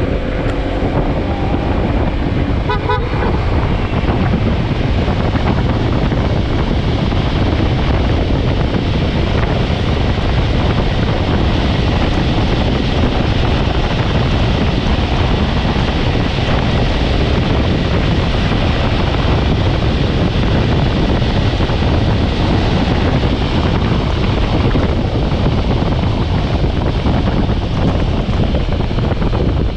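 Steady wind rush over the microphone, mixed with road and scooter noise, on a Yamaha X-Max 300 scooter being ridden. A short vehicle-horn toot comes about three seconds in.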